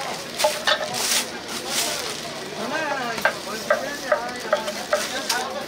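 Gopchang (pork intestines) frying and sizzling on a hot griddle, with metal utensils scraping and clacking against it in quick, irregular strokes as it is stirred.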